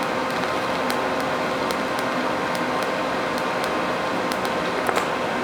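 TIG welding arc hissing steadily on steel sheet while pinholes are filled, with a faint steady hum and scattered light ticks.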